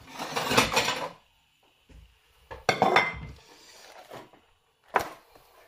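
A plate handled on a kitchen worktop as the bag of marinating chicken is set on it: two spells of clattering and rustling, then a single sharp knock near the end.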